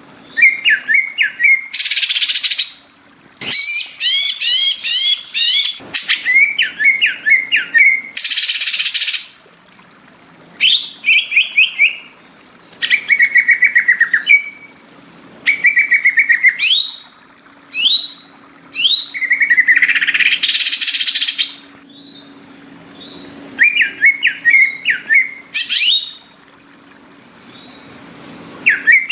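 Greater green leafbird (cucak ijo) in full, persistent song: a run of quick trilled and chattering phrases of rising and falling whistled notes, broken every few seconds by harsh rasping calls and short pauses.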